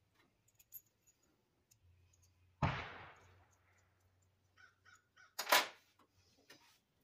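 A sharp metallic clank that rings and fades over about a second. About three seconds later comes a short harsh rasp.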